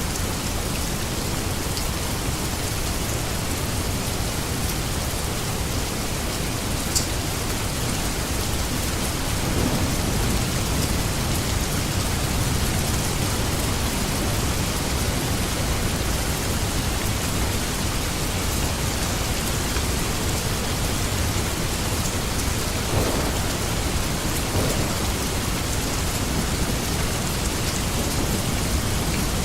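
Steady rain falling, an even hiss of countless drops with a deep low-end wash, and a single sharp drop-like tap about seven seconds in.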